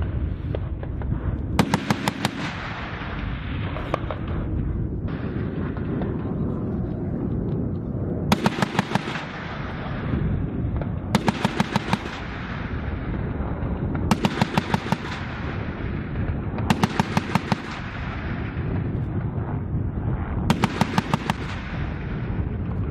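AH-1Z Viper attack helicopter's 20 mm three-barrel cannon firing six short bursts of rapid automatic fire, about every three seconds, over a steady low rumble.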